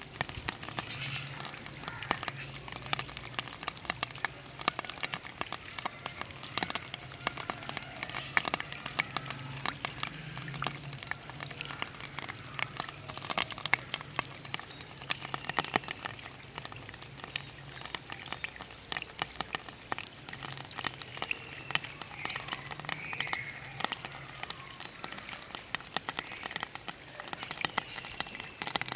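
Rain falling steadily, with many sharp drops pattering on a hard surface, and frogs croaking on and off.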